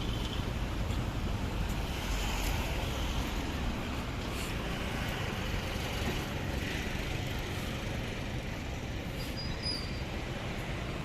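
Steady city road traffic noise: a low rumble of passing cars and other motor vehicles.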